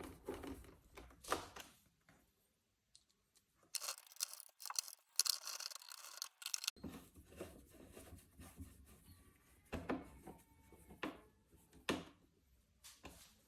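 Hands working on a robot vacuum's plastic parts: scattered clicks and knocks. About four seconds in comes roughly three seconds of harsh scraping, rustling noise.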